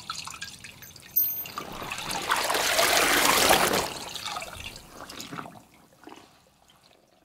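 A rushing noise that starts suddenly about a second in, swells to a peak around three seconds, and fades away by about six seconds.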